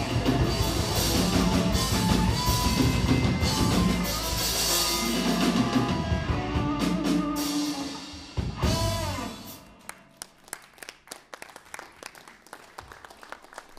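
Electric blues band of electric guitar, bass guitar and drum kit playing the closing bars of a slow blues, ending about eight seconds in on a final hit and a bent guitar note. After that it drops much quieter, with only scattered sharp clicks.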